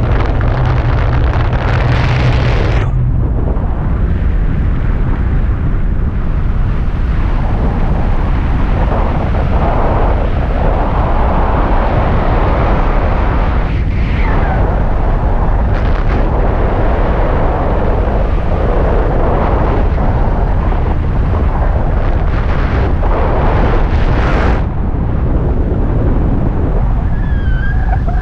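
Wind buffeting the microphone of a handheld action camera in paragliding flight: a loud, steady rumble of rushing air.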